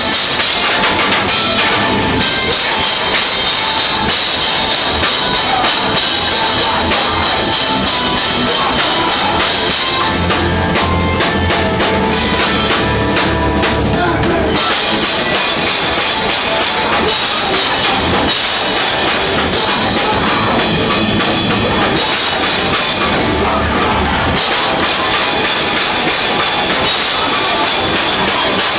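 Loud live rock band: distorted electric guitar, bass guitar and drum kit with cymbals, played at full volume close to the drums. About ten seconds in and again about eighteen seconds in, the music drops into a lower, heavier section with less cymbal on top.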